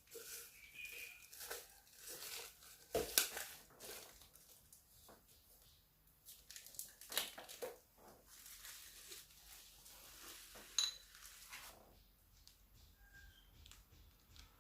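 Plastic packaging crinkling and tearing as it is handled and opened, with irregular crackles, rustles and a few sharp clicks; the loudest crackles come about three and seven seconds in.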